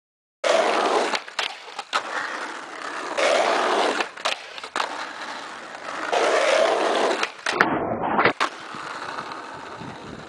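Skateboard wheels rolling over rough asphalt in several swelling surges, with a few sharp clacks of the board in between.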